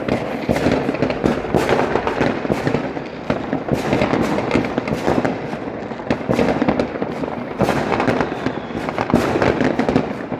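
Fireworks going off in a dense, continuous barrage of many overlapping bangs and crackles, with no break.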